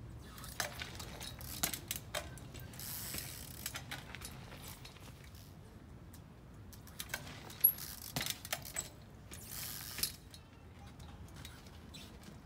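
Trials bike's freewheel ratcheting in short runs of rapid clicks while the rider balances in place on the pedals, with scattered sharp taps between them.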